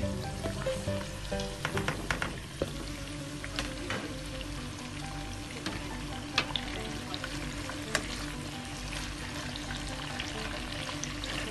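Food frying and sizzling in a pan, with a steady crackle and scattered sharp clicks, several close together about two seconds in. Background music plays underneath.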